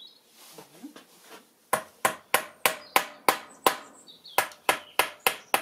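Wooden mallet tapping wooden dowels down into their holes in a board. After a short pause it strikes about three times a second, a dozen sharp knocks with a brief break in the middle.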